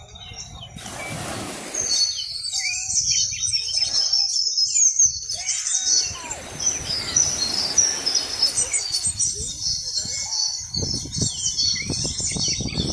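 Many small birds chirping at once in a busy, continuous chatter, over a low rumbling noise.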